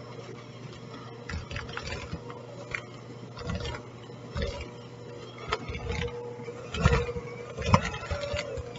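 Electric hand mixer running with a steady motor hum as its beaters work flour into thick cookie dough. The beaters knock and clatter irregularly against the bowl, loudest near the end.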